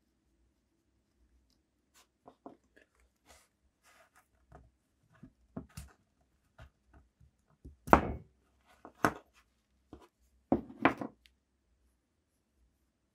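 Small rusty steel can-opener parts being handled and worked apart with pliers. Scattered light metal clicks and taps against each other and the wooden workbench, with a few louder knocks about two-thirds of the way through.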